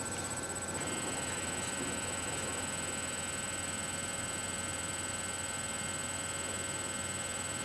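Steady electrical mains hum with a thin high whine. A set of extra high tones comes in about a second in and then holds steady.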